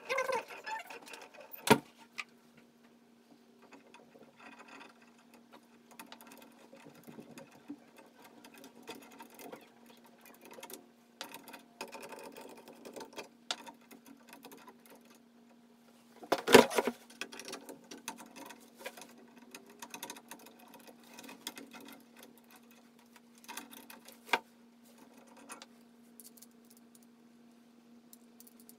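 Scattered small clicks, taps and knocks of hand tools and faucet parts being handled, with a sharp knock about 2 s in and a louder one about two-thirds through. A steady low hum starts just after the first knock.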